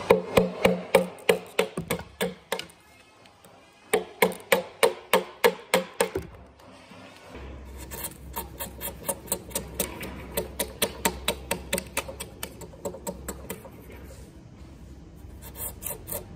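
Hammer driving a chisel into a softwood beam: quick sharp strikes, about four a second, in two runs with a short pause between. Then softer, rhythmic strokes of a small hand plane shaving wood from the bottom of the chiselled notch.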